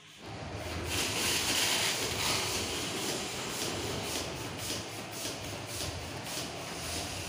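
Gold foil letter balloon crinkling as it is handled and blown up by mouth through a straw, with the rush of breath into it.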